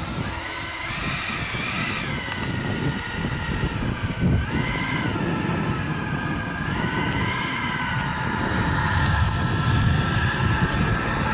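Jet engine of a Eurofighter flying past and away overhead: a steady rushing roar with a high whine that wavers up and down in pitch, growing a little louder near the end.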